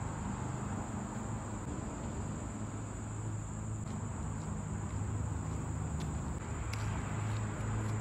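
A steady high-pitched insect drone, such as crickets or katydids, over a low continuous hum, with a few faint ticks in the second half.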